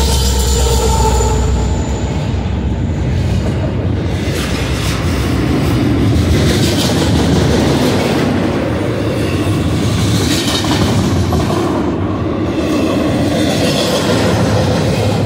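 BNSF freight train passing close by. Its trailing diesel locomotives, a GE Dash 9 and an EMD SD70ACe, rumble for the first couple of seconds. Then double-stack container well cars roll past with a steady wheel rumble, clacking over the rail joints, with faint wheel squeal.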